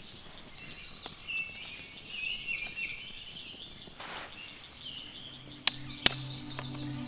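Birds chirping and singing in rapid repeated high notes. About five seconds in, background music with a low sustained tone fades in, marked by a couple of sharp strikes.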